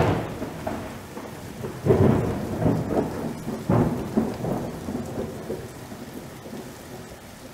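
Thunder over steady rain: three crashes about two seconds apart, each rolling off into a low rumble, dying away in the last few seconds.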